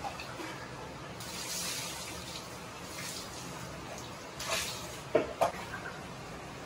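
Water splashing and sloshing in an outdoor hot-spring bath over a steady hiss, with two sharp splashes about five seconds in.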